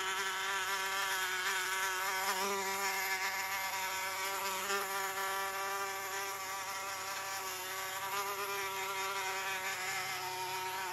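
Fly buzzing from a cat game app, played through a smartphone speaker: one continuous buzz that wavers slightly in pitch.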